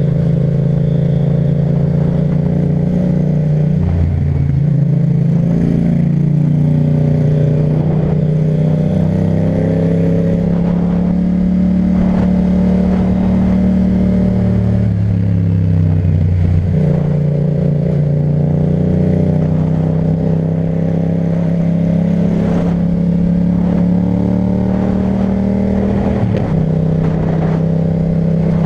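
Yamaha MT-07's parallel-twin engine through an Akrapovic titanium exhaust, running under way at a fairly steady pitch. Its pitch dips and rises briefly a few times as the throttle is eased and opened.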